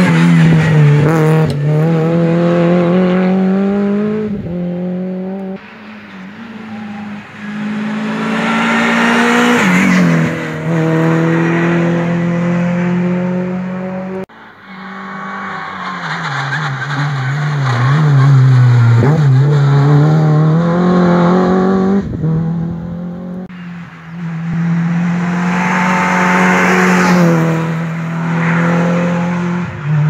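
Rally cars at full stage pace, one after another, engines revving hard. The pitch climbs and drops as the drivers change gear, falling sharply where they lift off for corners.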